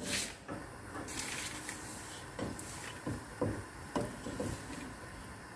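Plastic slotted spatula stirring a thin curry in a nonstick pot: a brief scrape at the start, then a handful of short knocks and scrapes against the pan.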